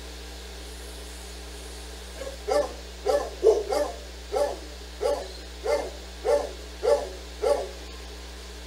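A dog barking about ten times in an even rhythm, roughly one bark every half second or so.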